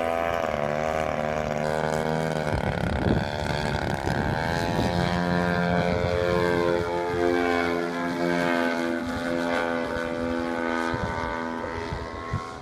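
Half-scale radio-controlled airplane's engine and propeller running in flight, the pitch swooping down and back up twice as it manoeuvres, then holding steadier before fading as the plane climbs away near the end.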